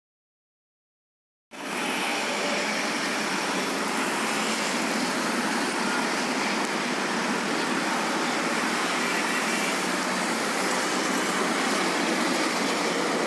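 Dead silence for about a second and a half, then steady road traffic noise, an even hum of passing cars and other vehicles with no separate events standing out.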